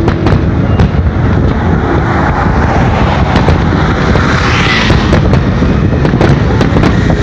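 Distant aerial fireworks going off as scattered sharp bangs, over a steady rumble of car traffic passing close by on the bridge.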